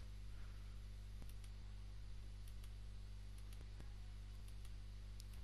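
Faint, scattered computer-mouse clicks over a steady low hum.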